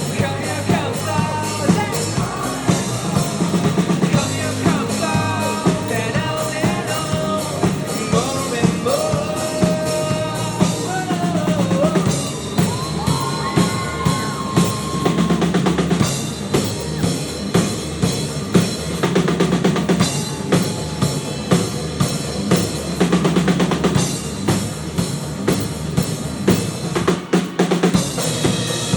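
Live rock band playing through a club PA: a drum kit keeps a steady beat over a bass line, with a melody on top.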